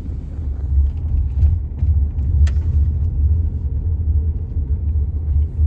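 Low, steady road rumble inside a moving car, with a short click about two and a half seconds in.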